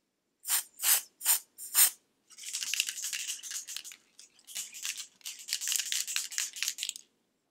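Aerosol can of colored nail polish spray hissing: four short puffs in quick succession, then two longer sprays of a second and a half and nearly three seconds.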